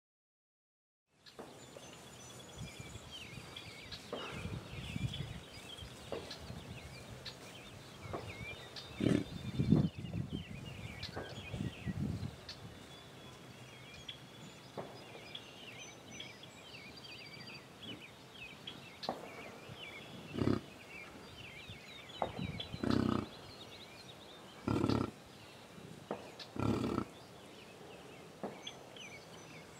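American bison grunting, several low rough grunts, loudest in a cluster about a third of the way in and then single grunts every couple of seconds, over songbirds chirping.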